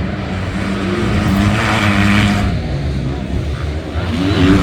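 Motocross dirt bike engines running on the race track, a steady engine drone that swells and shifts in pitch around the middle as a bike goes by.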